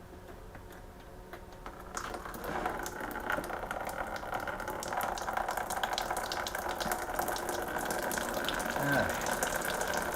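Engine coolant draining out of a 2012 Ford Focus's cooling system, a steady pouring of liquid that starts about two seconds in and grows louder.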